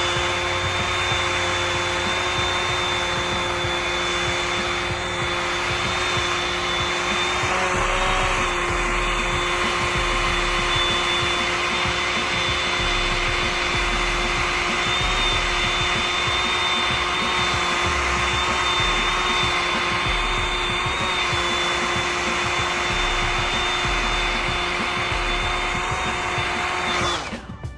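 Hair dryer blowing steadily with a constant whine, drying freshly applied glue gel to set the lace down flat. It cuts off abruptly near the end.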